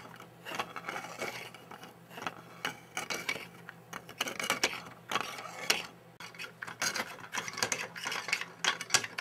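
Plastic internal Geneva drive model turned by a hand crank: the pin and locking parts click and clack irregularly, several times a second, as the driven wheel steps round.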